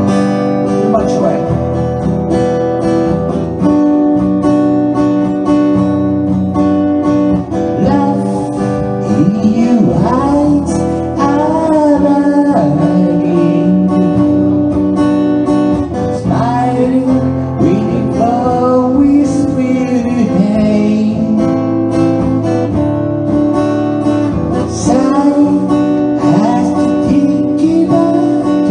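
Acoustic guitar played as a solo accompaniment, with a male voice singing over it from about eight seconds in.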